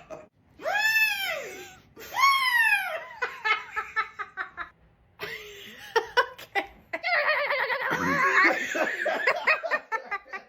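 A voice makes two high squeals, each rising and then falling in pitch. Bursts of laughter follow, and the longest, loudest laughing comes in the last few seconds.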